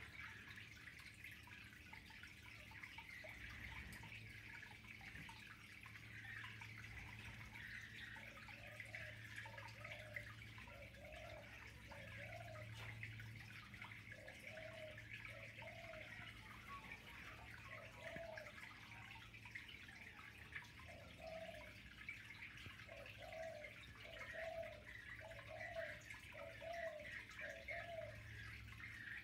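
Faint water trickling and dripping in a yabby tank over a steady low hum. Two runs of short low notes, each repeating about once a second, come in the second third and near the end.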